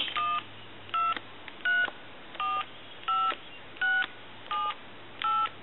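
AT&T 210 Trimline telephone keypad sending touch-tone (DTMF) digits: eight short dual-tone beeps about 0.7 s apart, the keys pressed in order from 1 to 8.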